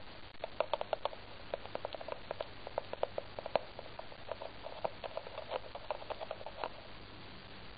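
Bare feet wiggling and tapping on the floor: a quick, irregular run of light taps and clicks that stops about a second before the end.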